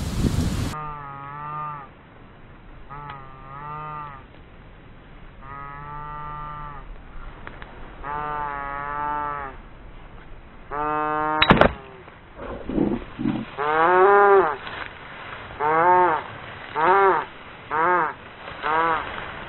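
Livestock calling over and over: drawn-out calls with a wavering pitch, a few seconds apart at first and then about one a second. A sharp knock comes about halfway through.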